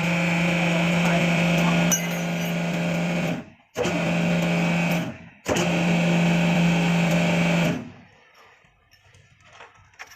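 A motor-driven machine running with a steady, even hum, heard in three stretches that each start and stop abruptly, then dropping away to quiet about eight seconds in.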